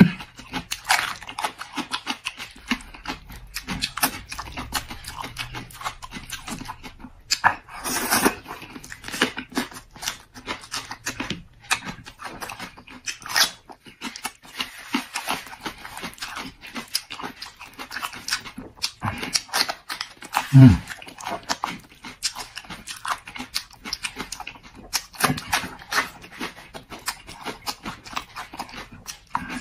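Close-miked mouth sounds of a man eating raw chili peppers and stewed eggplant: wet smacking and crunchy chewing in quick irregular clicks. About two-thirds of the way through comes one short hum that falls in pitch.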